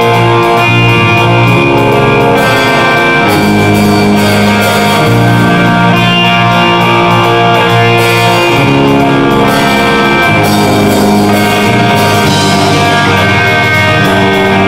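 Live progressive metal band playing an instrumental passage: electric guitars and bass hold long, loud chords that change every second or two over a drum kit.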